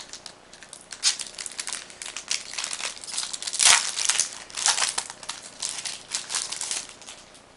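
The foil wrapper of a Magic: The Gathering booster pack crinkling and tearing as it is pulled open by hand. It is a fast, irregular run of crackles, loudest about halfway through, and it fades out near the end.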